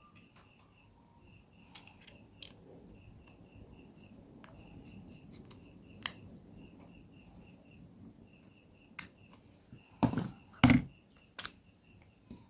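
Sharp clicks and taps of tools and parts being handled during a smartphone teardown, with two louder knocks about ten seconds in. Faint, evenly repeating high chirps run underneath.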